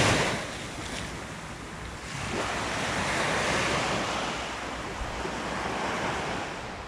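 Ocean surf washing up the beach, rising and falling in slow swells, with wind buffeting the microphone.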